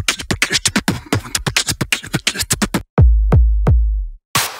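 Electronic intro jingle on a drum machine: a fast, even run of sharp beats, then from about three seconds in a few heavy, deep bass-drum hits that fall in pitch, broken by a short burst of noise.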